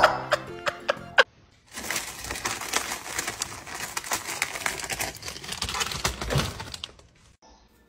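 Music cuts off about a second in. About a second later, plastic packaging starts crinkling and crackling with many small clicks, lasting roughly five seconds before fading out.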